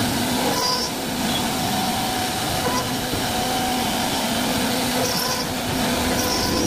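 CNC wood-carving router running steadily as it cuts a design into wood.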